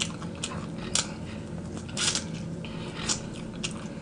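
A person chewing hot wings close to the microphone: a run of short wet mouth clicks about once a second, the loudest about two seconds in, over a steady low hum.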